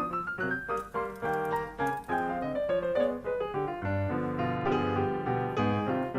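Background music: a piano melody over chords, with a lower bass part coming in about four seconds in.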